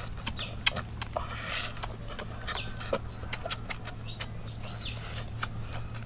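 Irregular sharp clicks and crunches from people chewing and handling grasshoppers, with a few short bird chirps in the background.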